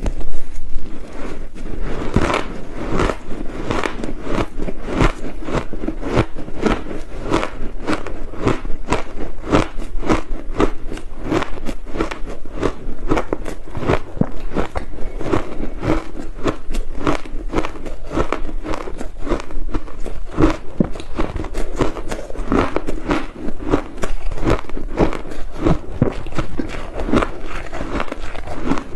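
Mouthfuls of crushed ice being chewed close to a clip-on microphone: a quick, even run of crisp crunches, several a second.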